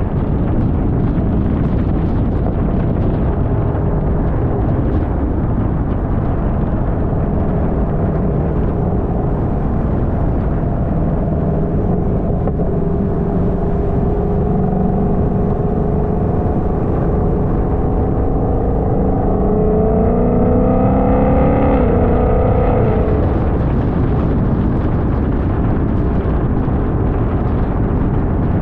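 Car driving at speed, with heavy road and wind noise. From about halfway in, an engine note climbs steadily in pitch as the car accelerates, then falls away at about 23 seconds.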